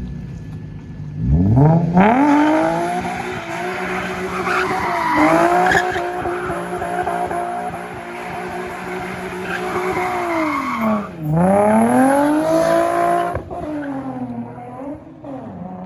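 Infiniti G35's V6 revved hard and held near the top of its range while the rear tires squeal and skid through donuts. The revs climb steeply just over a second in, dip sharply and climb again about eleven seconds in, then fall away near the end.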